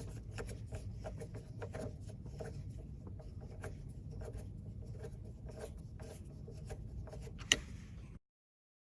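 Light scraping and small taps from hands handling the removed metal soft-top latch, with one sharp click near the end, over a low steady hum; the sound cuts out abruptly just before the end.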